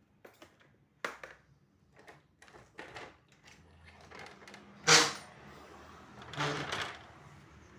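Handling noise while bailing out collected rainwater: scattered light knocks and clatters, one loud knock about five seconds in, and a short noisy splash-like burst about a second later.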